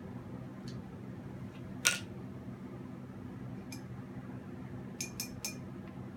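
A single sharp click about two seconds in, then three quick clicks near the end, with a few fainter ticks between, over a steady low hum.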